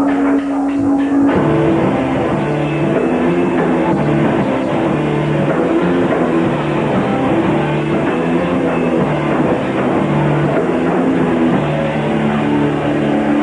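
A live rock band of drums, bass guitar and electric guitar playing loud. A single held note sounds first, then the whole band comes in about a second in and plays on.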